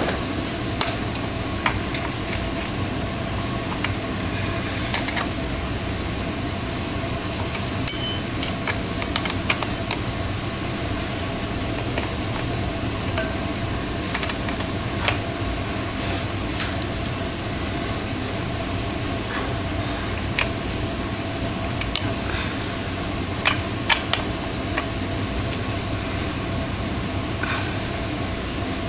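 Scattered short metallic clicks and clinks of an Allen wrench working on a dirt bike's rear sprocket bolts, a dozen or so spread irregularly, over a steady background hum.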